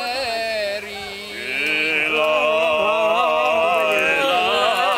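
Men singing a Cretan rizitiko without instruments: one voice holds a long, wavering, ornamented line, and about a second and a half in more voices join and the singing grows louder.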